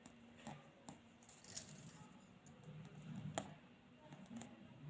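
Faint handling and writing sounds: light taps and a few small, sharp clicks, as of a pen on paper, the clearest about three and a half seconds in.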